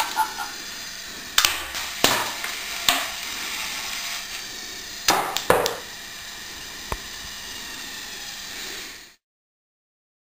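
Lego robot's motor-driven hammer arm striking a box, with sharp plastic knocks about a second and a half, two and three seconds in, then a louder clatter about five seconds in as the box is knocked over onto the tile floor. The sound cuts off abruptly about nine seconds in.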